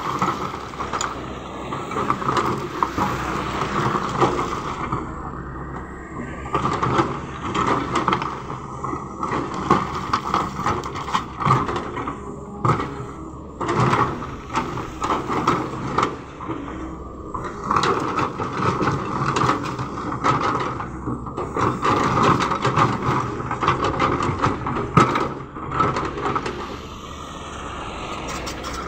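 Hydraulic excavator's diesel engine running steadily under load, with stones knocking and clattering again and again as the bucket digs and sorts rock.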